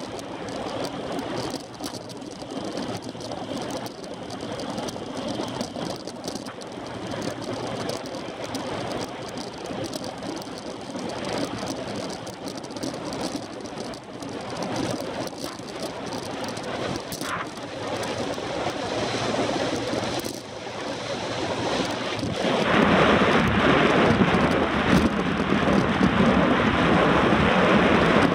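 Wind rushing over the microphone of a handlebar-mounted camera on a road bike at speed, mixed with tyre and road noise. The rush grows markedly louder about two-thirds of the way through.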